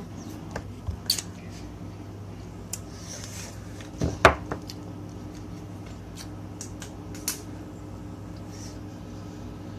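Scattered small clicks, cracks and knocks of crab shell and a plastic cup being handled, the loudest knock about four seconds in, over a steady low hum.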